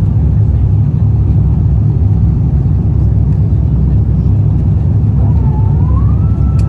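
Steady low rumble of an Airbus A350-1000's Rolls-Royce Trent XWB engines and airflow, heard inside the cabin while the airliner climbs out after takeoff. About five seconds in, a faint whine dips, then rises and holds at a steady pitch.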